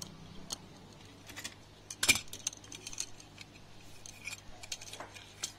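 A metal PCB holder and a phone motherboard being handled on a workbench: a string of light metallic clinks and taps, the loudest about two seconds in.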